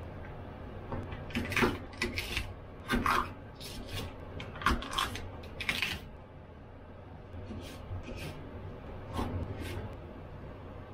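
Kitchen knife cutting green peppers on a wooden cutting board: irregular chops and scrapes, thickest in the first half and fewer and softer later.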